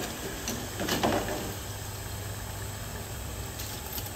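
Milkfish spring rolls (bangus shanghai) deep-frying in a pot of hot oil, a steady sizzle, with metal tongs knocking lightly against the rolls and pot about a second in as they are turned and lifted out.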